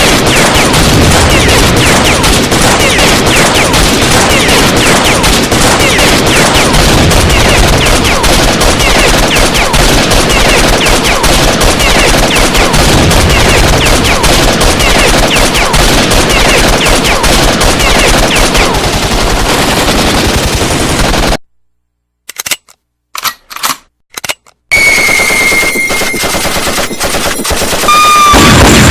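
Recorded automatic gunfire: a long, unbroken stream of rapid shots that cuts off suddenly about three-quarters of the way through. A few single shots follow, then loud firing mixed with ringing tones near the end.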